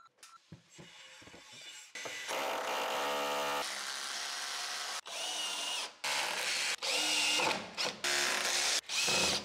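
Cordless drill-driver driving screws into a PVC foam-board cabinet: a few faint handling clicks, then one long run of about three seconds, then about five short bursts with brief pauses between.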